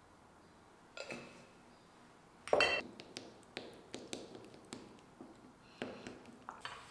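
Eggs and chopped vegetables being beaten with a wooden fork in a ceramic bowl: the fork taps against the bowl about three times a second. A louder ringing clink on the bowl comes a little before the tapping starts.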